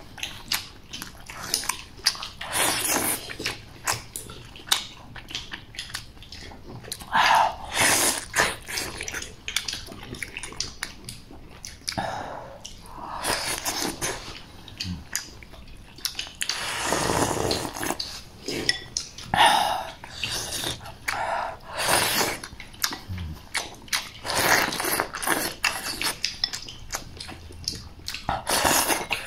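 A person eating soup dumplings with chopsticks: irregular slurps of hot broth and chewing, close to the mouth, with one longer slurp about seventeen seconds in.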